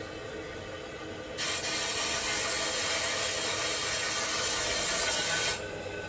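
Steady hissing, rushing noise from a running Weil-McLain EG75 gas-fired steam boiler. It grows stronger and brighter about a second and a half in and eases back near the end.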